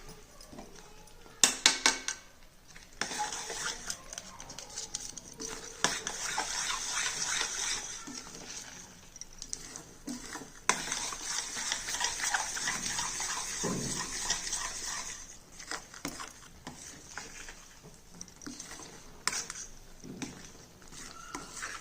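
A spatula stirring and scraping a thick, sticky banana-jaggery barfi mixture around a kadhai, with a few sharp knocks against the pan about a second and a half in. The scraping is busiest for most of the first two-thirds, then thins to occasional scrapes and clicks. The mixture is cooked down to the stage where it starts to leave the sides of the pan.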